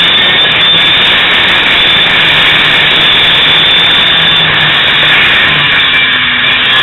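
Racing kart engine running hard at lap speed, heard loud and steady from a camera mounted on the kart.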